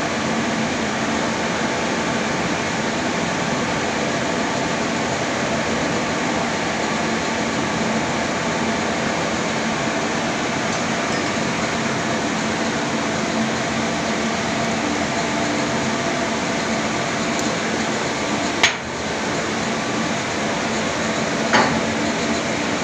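Steady, loud drone of shipboard machinery in a refrigeration plant, an even noise with a low hum running through it. Two sharp knocks come near the end.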